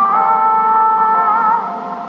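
Japanese municipal disaster-prevention radio chime: a melody played over outdoor public-address loudspeakers, its held notes wavering and overlapping.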